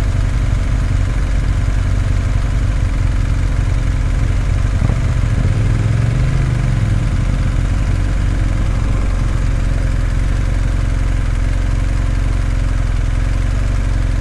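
Motorcycle engine running steadily at low revs, rising briefly in pitch about six seconds in.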